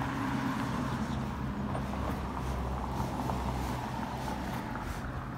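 Road traffic on a city street: cars passing, a steady low rumble of tyres and engines.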